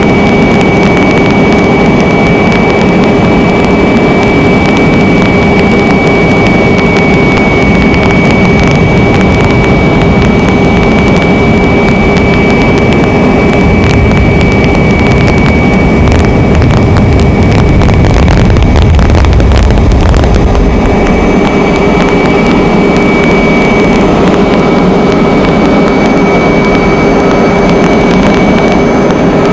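Aircraft engine running steadily, heard from on board: a loud, constant drone with a high whine held at one pitch. A low rumble swells for a few seconds a little past the middle.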